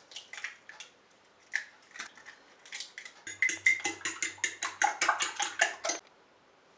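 A kitchen utensil clinking against a bowl: scattered clinks at first, then a quick even run of about seven clinks a second from about three seconds in, which stops about six seconds in.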